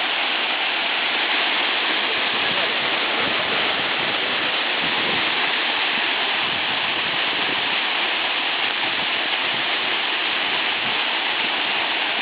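Waterfall rushing steadily: a constant, even roar of falling water.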